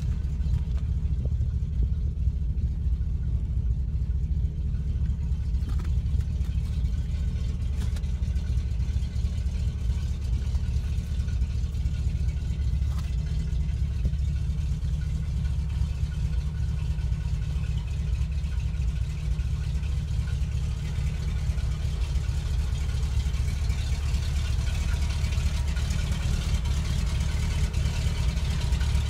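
The 1986 Chevrolet C6500 truck's 366 gas V8 engine idling, a steady low rumble that holds even throughout.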